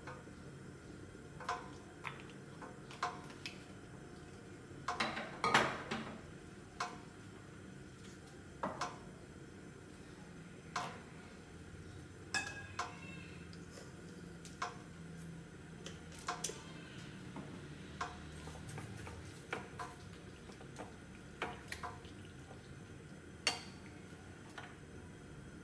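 Scattered light clicks and clinks of dishes and utensils being handled, irregularly spaced, with a louder cluster of knocks about five seconds in, over a faint steady hum while oil heats in a wok.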